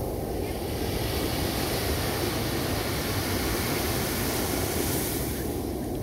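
Small waves breaking and washing up a sandy beach, the hiss of the surf building through the middle and fading near the end, over a steady low rumble.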